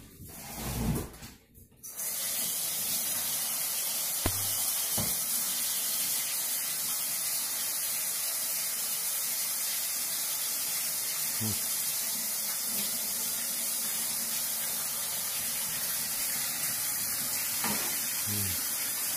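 Kitchen sink tap running steadily as hands are washed under it, starting about two seconds in, with a few light knocks.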